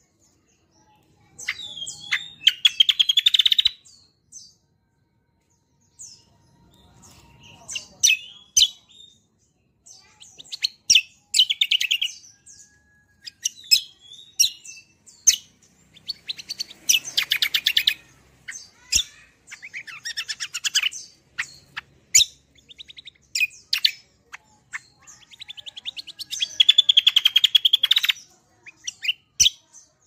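Caged kecial kombo singing in bursts of sharp chirps and fast rattling trills, the longest trills coming about two seconds in, around the middle and near the end.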